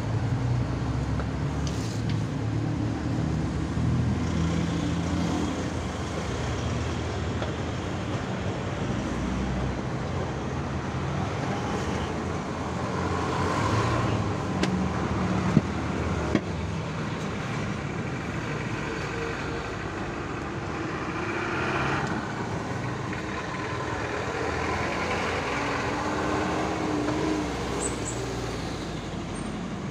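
Road traffic going by, a steady rumble that swells and fades as vehicles pass. About halfway through come two sharp clicks, a second apart.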